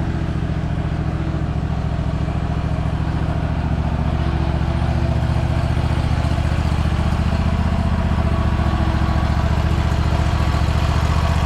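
Riding lawn mower engine running steadily at idle while towing a load, a low, even engine note.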